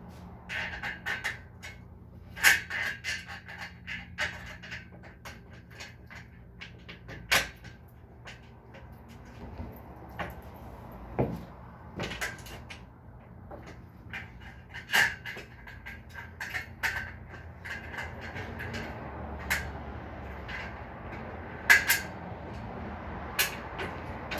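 Irregular clicks, clinks and knocks of bed-frame parts and bolts being handled and fitted together during assembly, the sharpest about two seconds in and again near the end.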